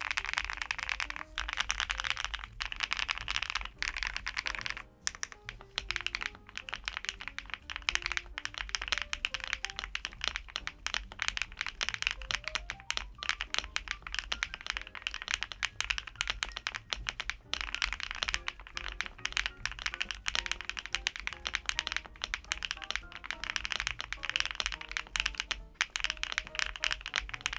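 Fast, continuous typing on a LUMINKEY75 V2, an aluminium-cased, gasket-mounted mechanical keyboard: a dense run of key clicks, with background music underneath.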